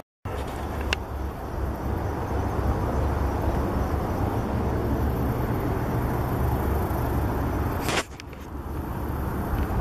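Steady drone of distant interstate highway traffic, heavy in the low rumble. It drops out for a moment at the very start and falls quieter about eight seconds in.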